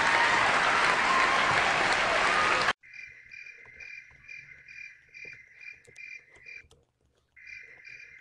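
Applause that cuts off abruptly about a third of the way through, replaced by crickets chirping: a steady run of about three chirps a second, a short break, then more chirps.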